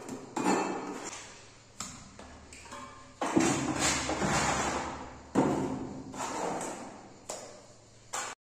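Mason's trowel scraping and knocking against a plastic mortar bucket and the wall while plastering: about six separate strokes, each sudden and then fading.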